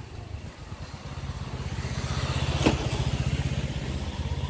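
Low engine rumble of a passing motor vehicle, likely a motorbike. It grows louder to a peak a little past halfway, where there is one sharp click, then eases off.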